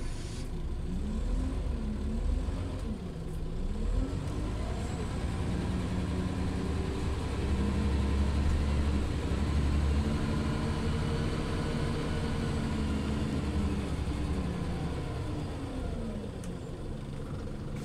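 Scania OmniLink CL94UA city bus engine heard from inside the cabin as the bus pulls away. The engine pitch rises and drops twice in the first few seconds as it shifts up, runs steadily and loudest in the middle, then falls away as the bus slows.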